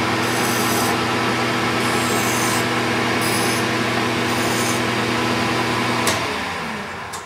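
Metal lathe running with a steady motor and gear hum while a flat file is pressed against the spinning chuck backplate four times in short scraping strokes to knock off burrs. About six seconds in there is a click and the lathe winds down.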